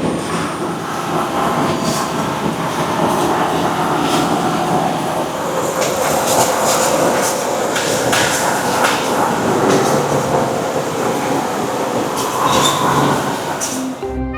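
Factory machinery running steadily, with a dense clatter of short clicks and knocks over a continuous mechanical rumble.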